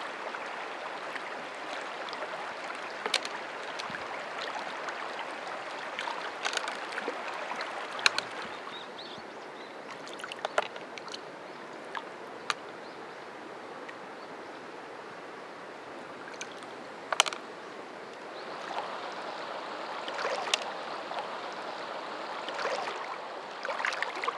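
Shallow stream water flowing steadily, with scattered sharp clicks and small splashes as hands pick freshwater marsh snails off the stones underwater and drop them into a plastic basket.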